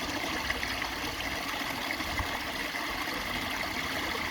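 Water pouring steadily from a garden koi pond's waterfall and splashing into the pond.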